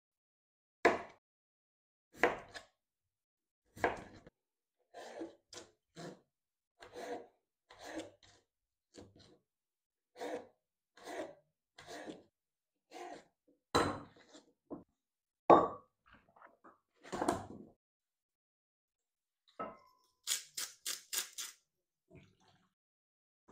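Chef's knife cutting peeled raw potatoes on a plastic cutting board: single chops at about one a second, each stroke a knock of the blade through the potato onto the board. Near the end comes a short, quick rattle.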